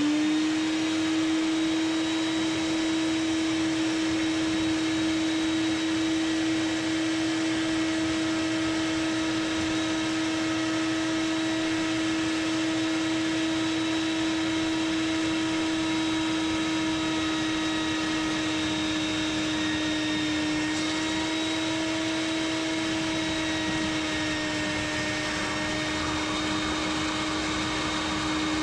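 Wet/dry shop vacuum running steadily with a steady whine, its hose held in the standing water of a blocked kitchen sink drain to suck the water out. The pitch sags slightly past the middle, then recovers.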